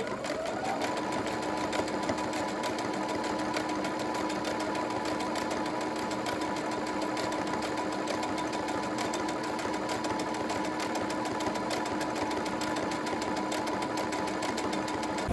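Brother CS7205 electric sewing machine stitching a straight seam through two layers of cotton fabric. Its motor whine rises in pitch over the first second as it gets up to speed, then holds steady with a rapid, even needle clatter.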